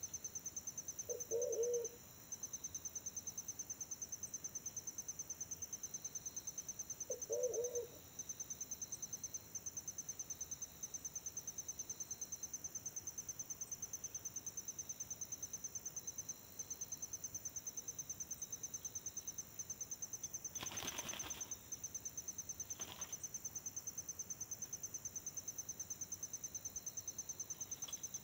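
A pigeon cooing twice, short low coos about six seconds apart, over a steady high insect trill that pulses throughout. About two-thirds of the way through comes a brief rustling burst, with a smaller one two seconds later.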